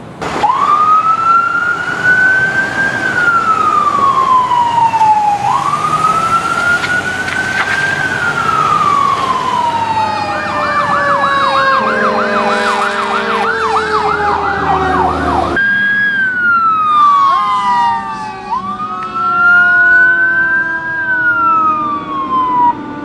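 Fire engine sirens sounding loudly, first in a slow rising-and-falling wail, then in a fast yelp of about four cycles a second with a horn blaring under it. Partway through the sound cuts abruptly back to a wail, with some siren tones gliding downward in pitch.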